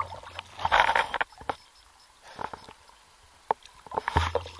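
Small sea waves sloshing and slapping against a camera held at the water's surface, in a few irregular splashes with one sharp tap.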